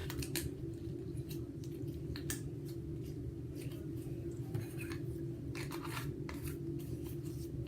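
Slime being squeezed and worked by hand for ASMR, giving scattered small clicks and pops over a steady low hum.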